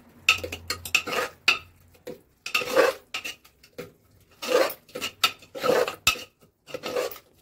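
Metal spoon scraping and clinking against the inside of a metal pressure cooker as thick carrot halwa is stirred with khoya, in irregular strokes.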